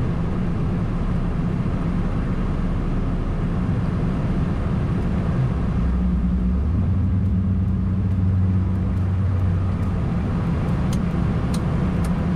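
Steady low rumble on the flight deck of a Boeing 747-8 in its initial climb just after liftoff: the four GEnx engines at takeoff thrust and the rush of air over the nose. A steadier low hum stands out for a few seconds in the middle, and a few light clicks come near the end.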